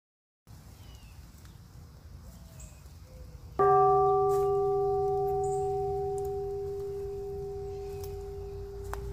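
A single bell-like metallic ring struck about three and a half seconds in, sustaining and slowly fading, over faint woodland ambience with a few bird chirps.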